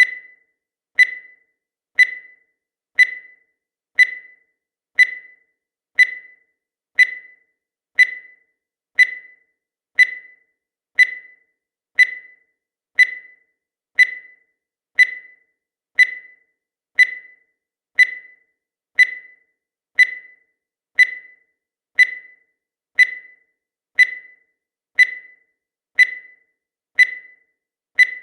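Countdown timer sound effect: a short, high electronic beep once every second, each fading away quickly, in a steady unchanging rhythm.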